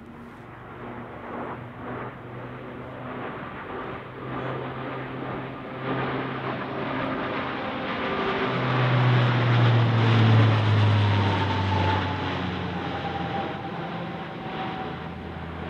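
Alenia C-27J Spartan's twin Rolls-Royce AE 2100 turboprops and propellers as the aircraft passes overhead. The engine and propeller sound grows louder to a peak about ten seconds in, then drops in pitch and eases off as it moves away.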